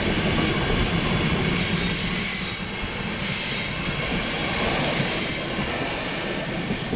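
Passenger coaches of a steam train rolling past over the rails in a steady rumble, with brief faint high wheel squeals, thinning slightly as the last coach goes by.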